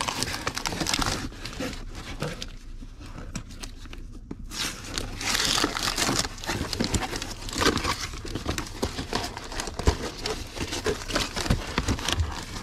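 Packing paper crinkling and cardboard rustling as a boxed item is unwrapped by hand, in irregular bursts with a quieter pause a couple of seconds in.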